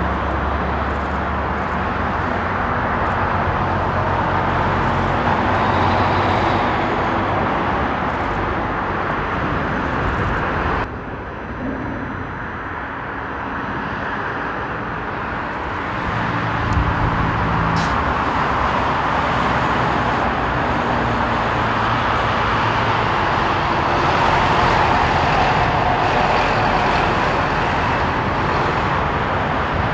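Steady rushing roar of a Boeing 777-300ER's GE90-115B jet engines as the airliner comes in on final approach, with a low hum beneath. The sound changes abruptly about eleven seconds in, as at an edit, and swells a little near the end as the aircraft draws closer.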